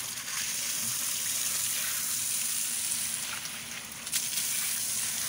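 Steady rushing hiss of running water, with a single sharp knock about four seconds in.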